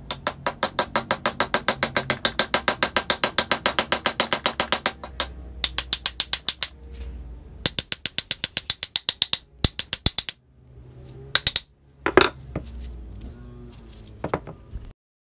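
Socket ratchet wrench clicking rapidly, about nine clicks a second, in a long run and then shorter bursts with pauses. Near the end there are a few single clicks and one louder knock.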